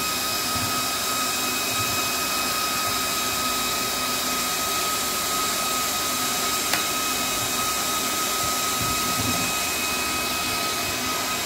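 Cooling fan of a portable 300-bar PCP air compressor running steadily: a continuous whir with a thin, steady high whine. One small click sounds about seven seconds in.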